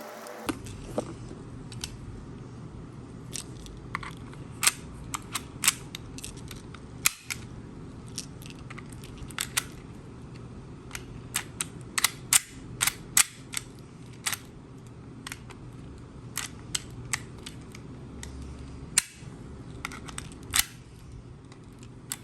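Marks 22AC3 mortise lock mechanism clicking sharply again and again as it is worked by hand, its latch and levers snapping back under a newly hand-bent flat steel spring, over a steady low hum.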